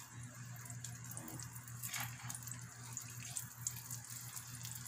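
Melted butter sizzling and crackling faintly in a nonstick frying pan as raw tuna steaks are laid in, with scattered small pops and light clicks of metal tongs over a low steady hum.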